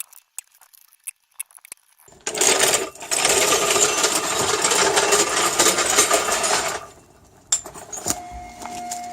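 Impact wrench hammering at a car's wheel nut for about four and a half seconds, starting about two seconds in and briefly pausing near the start, followed by a single knock.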